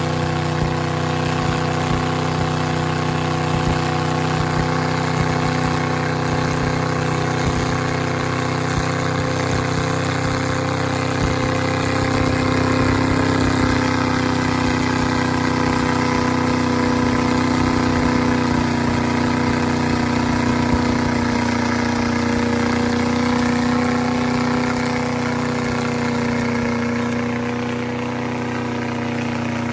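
Mega truck's engine running hard and steady while its paddle tires spin in deep mud, the truck stuck in the pit. The pitch climbs a little about twelve seconds in and eases back near the end.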